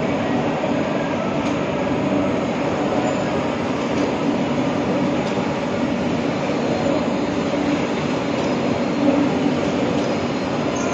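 Steady mechanical running noise, a continuous drone with a low hum that does not change.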